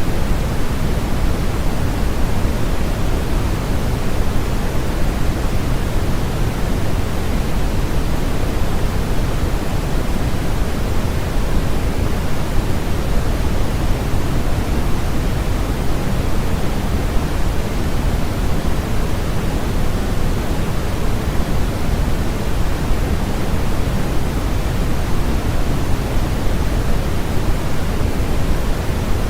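Steady synthetic noise from a sleep-aid noise track: an even, unchanging hiss and rush, heavier in the low end than the highs, with no rhythm or breaks.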